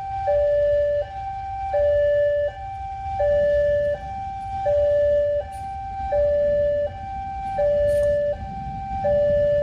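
Electronic two-tone warning alarm alternating evenly between a higher and a lower tone, each held about 0.7 s, over a low rumbling noise.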